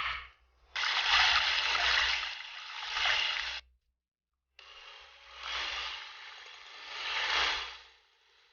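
Liquid splashing and sloshing in two stretches of about three seconds each, with a clean break between them.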